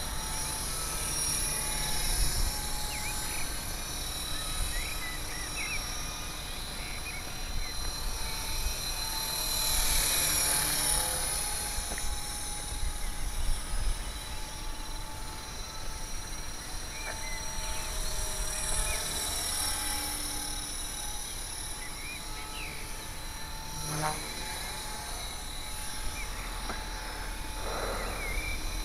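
HK 450 Pro TT electric RC helicopter running steadily at about 2200 rpm headspeed, with a steady whine and an unhealthy noise that comes from a defective mainshaft ball bearing.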